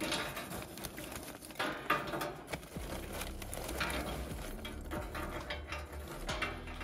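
Lumps of charcoal tipped from a paper bag, clattering onto a metal grill grate in several uneven bursts, with the paper bag rustling.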